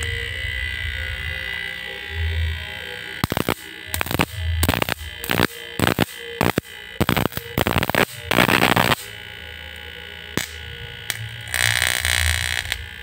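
Homemade SCR-driven inverter with a double toroidal transformer under a short-circuit protection test: a steady whine, then a string of sharp crackling snaps as a wire is touched to the output and sparks at the contact. Near the end a harsh buzz starts as the load comes on.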